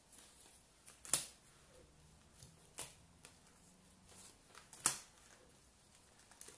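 UNO playing cards laid down one by one onto the discard pile on a glass tabletop: three sharp clicks, the loudest about five seconds in, with faint rustling and ticking of cards being handled between them.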